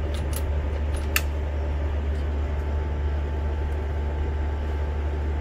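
A few light metallic clicks in the first second or so as the Brocock Sniper XR Magnum air rifle's sliding side action is cycled to chamber a pellet, over a steady low mechanical hum.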